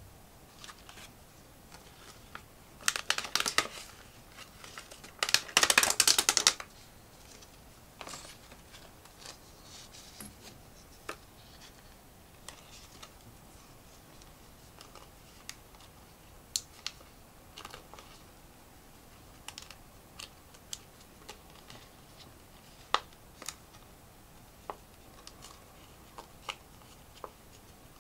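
Plastic LEGO pieces being handled and snapped together: scattered sharp clicks, with two louder dense bursts of plastic rustling and rattling a few seconds in.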